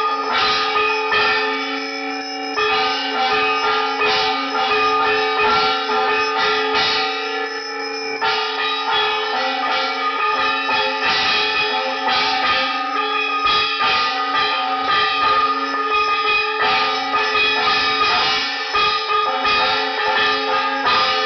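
Brass puja bells ringing rapidly and without pause, a dense clatter of strikes over several lingering ringing tones, as rung during an aarti lamp offering.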